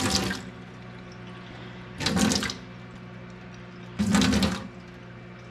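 Water from a kitchen faucet running into a 2-quart measuring pitcher to fill it, with three louder splashing surges about two seconds apart.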